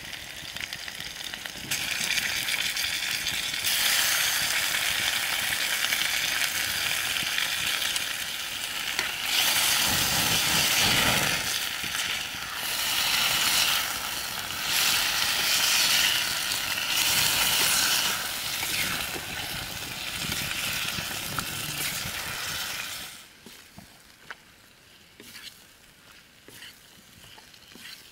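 Marinated chicken frying in hot oil, a loud sizzle that swells and eases in waves as it is stirred, then drops away suddenly near the end.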